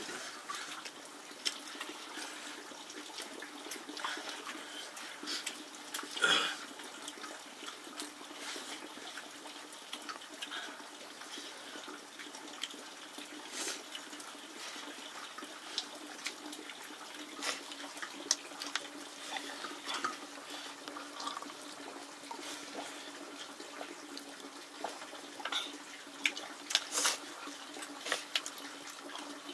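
Running, splashing water with scattered small clicks and knocks, over a faint steady low hum.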